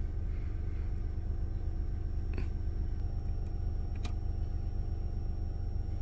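Steady 40 Hz test tone played through a car subwoofer (Skar Audio VXF 12), a deep, even hum with overtones, with the amplifier gain set at the edge of clipping.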